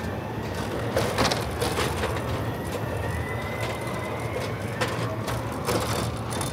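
Assembly-hall ambience in a truck cab factory: a steady low hum with scattered knocks and clacks of parts and tools, and a faint thin whine in the middle.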